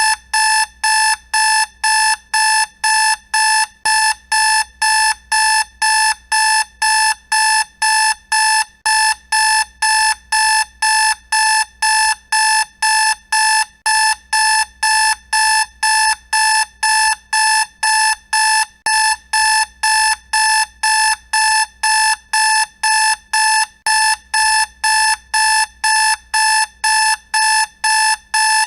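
Alarm clock going off: a loud, high-pitched beep repeating evenly about twice a second without a break, the wake-up alarm at the end of a sleep session.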